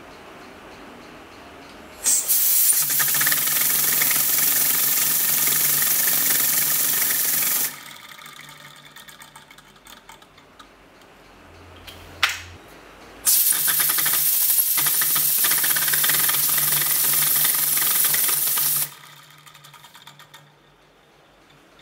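Compressed air hissing from an air-duster can into a small syringe-piston air engine with a hard-drive platter flywheel, in two long bursts of about five seconds each. Fast mechanical clicking of the running engine comes under the hiss and continues more faintly between the bursts.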